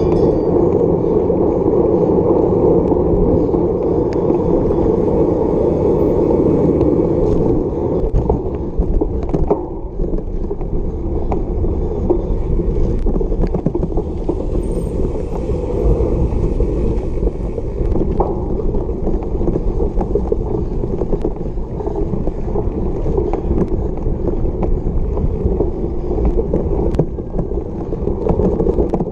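Cyclocross bike ridden hard: the knobby tyres hum on pavement, then rumble over bumpy grass from about ten seconds in, with the bike frame rattling and scattered knocks.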